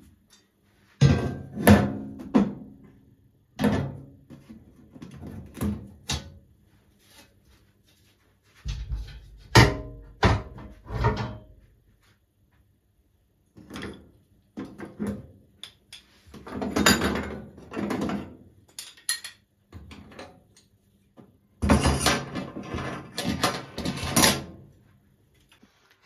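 Metal pan grates and burner caps being lifted off a stainless-steel gas hob and set down, clanking and scraping in several bursts of clatter with short pauses between.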